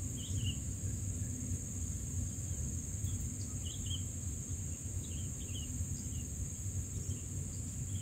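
Steady high insect drone, like crickets, over a low rumble. Faint short chirps come in small clusters several times: long-tailed shrike nestlings begging with gaping bills.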